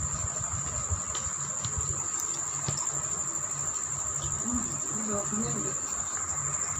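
A steady high-pitched insect-like trill, such as crickets, over low background room noise.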